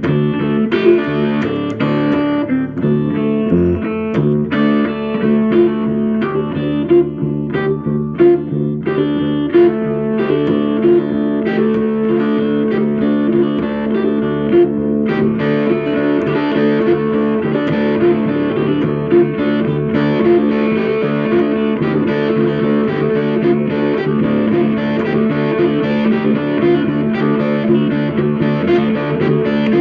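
Guitar music, with notes played in a steady rhythm; the playing fills out about halfway through.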